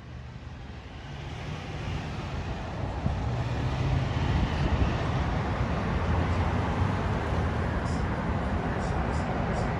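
Fire truck engine rumbling amid city street traffic, growing louder over the first few seconds as it approaches and then holding steady.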